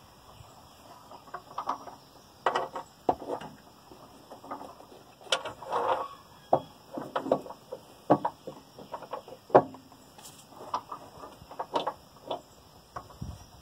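Irregular clicks, knocks and short rattles, a few a second and unevenly spaced, of tools and parts being handled during work on the truck.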